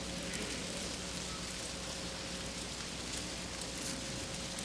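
Faint steady hiss with a low, even hum underneath: the background noise of the room and recording.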